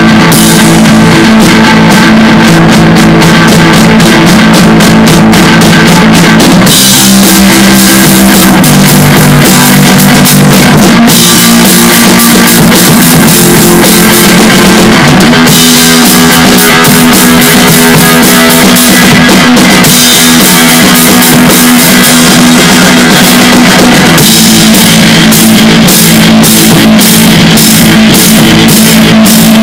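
Rock improvisation on electric guitar and drum kit: a white hollow-body electric guitar rings out sustained chords over steady drumming. The cymbals come in much stronger about seven seconds in.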